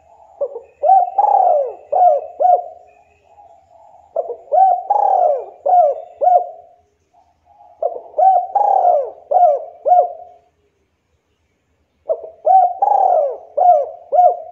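Spotted dove cooing: four phrases of several rising-and-falling coos each, a few seconds apart.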